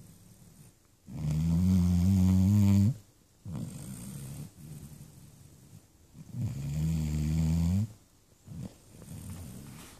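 A sleeping Labrador retriever puppy snoring loud: two long snores, the first about a second in and the second about six and a half seconds in, with softer breathing sounds between them.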